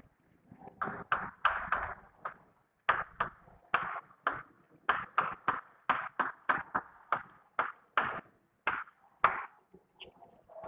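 Chalk tapping and scraping on a chalkboard as a word is handwritten: a quick, irregular run of short, sharp strokes, several a second.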